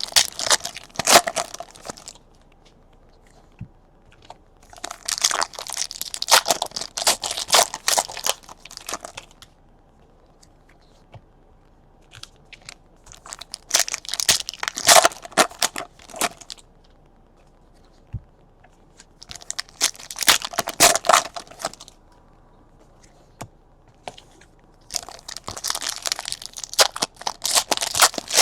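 Trading-card pack wrappers being torn open and crinkled, in about five separate bursts of tearing and crinkling with short quiet gaps between.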